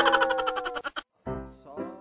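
Comedy music and cartoon sound effects: a falling tone over a quick run of taps that stops about a second in, then after a short gap a quieter tone whose pitch bends.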